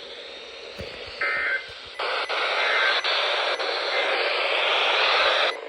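Radio receiver hissing with static, with a short burst of tones a little over a second in and a few faint clicks; the hiss grows louder about two seconds in and cuts off suddenly near the end.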